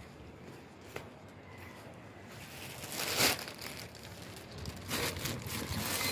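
Rustling and crinkling handling noise that starts faint, with a single click about a second in, then swells about three seconds in and again near five seconds.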